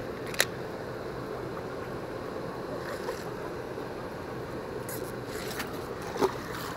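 Steady rushing outdoor background noise, with a sharp click about half a second in and a louder knock near the end.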